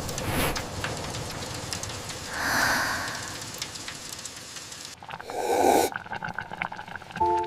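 Steady rain, with two louder soft swells about two and a half and five and a half seconds in; the rain cuts off abruptly near the end, where a light clink sounds.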